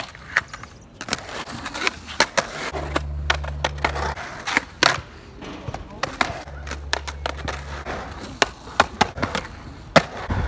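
Skateboard riding in a concrete bowl: wheels rolling on concrete, with many sharp clacks as the board and trucks strike the coping at the lip. Two stretches of low rumble, each over a second long, come about three and six and a half seconds in.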